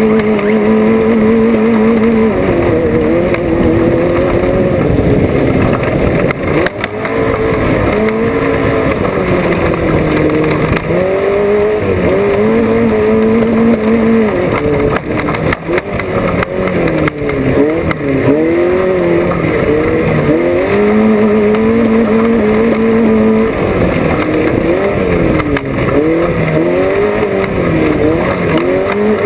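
Off-road race car's engine heard on board, revving up and falling back again and again as the throttle is worked over rough ground, with a few knocks around the middle.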